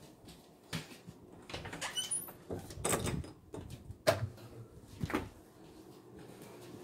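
Close-up household handling sounds: a string of clicks, knocks and rustles, as of a door and objects being handled, with the sharpest knock about four seconds in and a few faint high squeaks about two seconds in.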